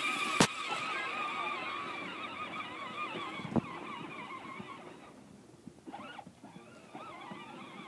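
Electric motor and gearbox of a battery-powered John Deere ride-on toy tractor whining with a wavering pitch as it drives over grass, fading as it moves away. Two sharp clicks sound early on and about three and a half seconds in.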